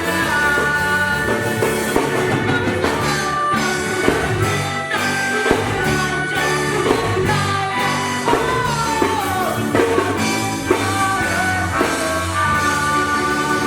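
A ska band playing, with singing over drum kit and guitar.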